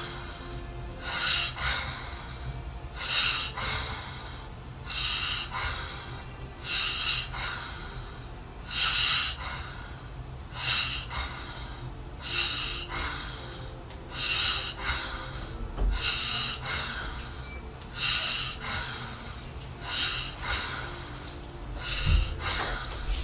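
A man snoring in his sleep, a noisy snorting breath about every two seconds, a dozen in a row, over a steady low hum. There is a low thump near the end.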